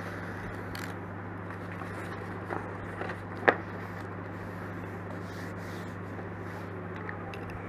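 A sheet of coloured chart paper being folded, rubbed and creased flat by hand on a tabletop, with soft scraping and rustling and one sharp snap about three and a half seconds in, over a steady low hum.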